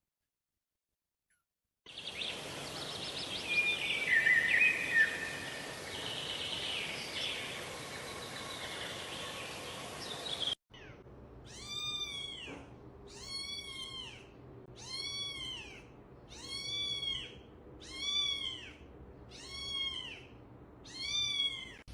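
A cat meowing over and over, nine rising-and-falling meows about a second apart, in the second half. Before that comes a noisy stretch with a few high chirping sounds.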